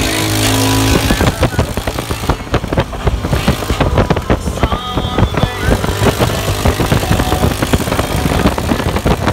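Motor vehicle engine running on a road, with a steady engine tone for about the first second, then loud, choppy noise full of rapid crackles.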